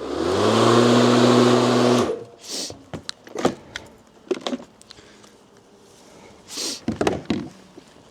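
Einhell cordless lawnmower's electric motor and blade spinning up with a rising hum and whoosh, running steadily for about two seconds, then cutting off. Several short plastic clicks and knocks follow.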